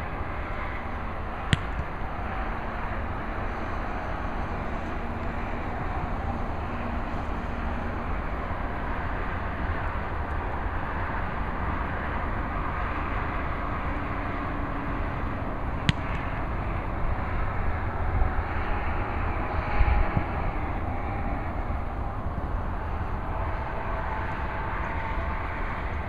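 Steady outdoor traffic noise from a nearby road, with two sharp, isolated knocks, one about a second and a half in and one about sixteen seconds in.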